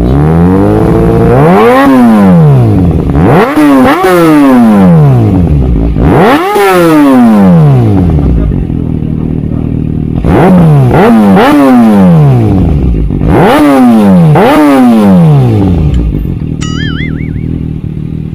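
Kawasaki ZX-6R inline-four revved through an Austin Racing titanium slip-on exhaust: a string of sharp throttle blips, each rising and falling in pitch, several in quick pairs. The engine settles back to a steady idle near the end.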